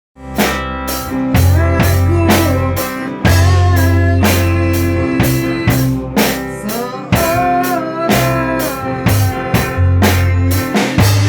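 Band rehearsing live: drum kit keeping a steady beat under a bass line and a bluesy electric guitar lead whose notes bend in pitch.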